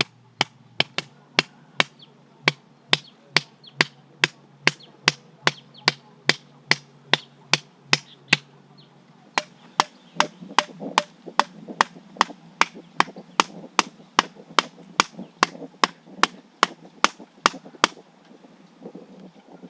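Knife chopping on a cutting board in steady strokes, about two a second, with a brief pause a little before halfway and fainter scraping between strokes after it; the chopping stops near the end.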